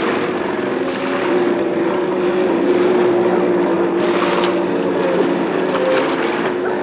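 Jet ski engine running steadily: a loud droning tone that wavers slightly in pitch in the latter half, over a rushing hiss.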